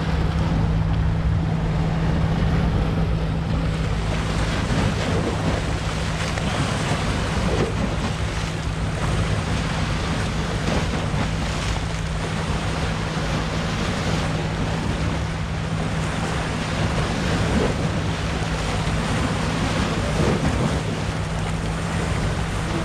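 Sea surf washing with wind buffeting the microphone, over a steady low motor hum.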